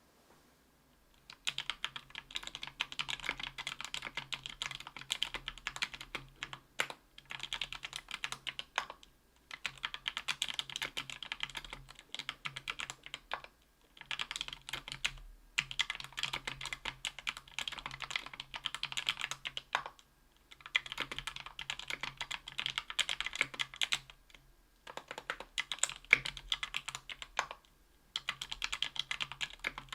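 Typing on a 60% aluminium-plate mechanical keyboard with lubed Thic Thock Marshmallow 68g linear switches and GMK keycaps: rapid keystrokes in runs of a few seconds with short pauses between them. Typing starts about a second and a half in.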